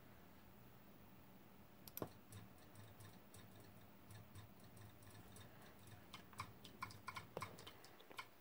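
Near silence over a faint low hum, with scattered light clicks: one sharp click about two seconds in, then quicker, irregular clicking over the last two seconds.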